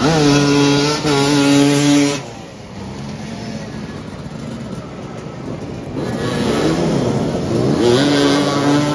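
Motoball motorcycles revving as the riders manoeuvre for the ball. One engine is held at steady high revs for about two seconds near the start, then cuts back. From about six seconds in, several engines rev up and down together.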